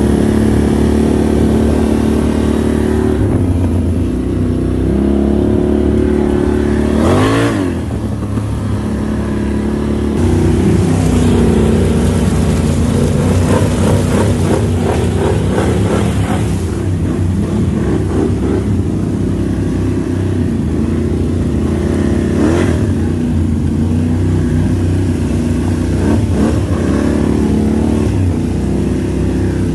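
Can-Am ATV engine running and revving under load, its pitch rising and falling with the throttle while it is ridden through a muddy trail. For a few seconds near the middle, mud and water splash up against the machine.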